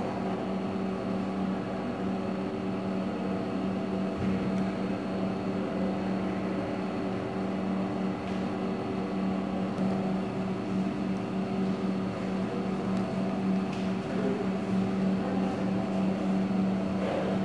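Steady low mechanical hum: one constant tone with its overtones over a faint hiss, and a few faint ticks.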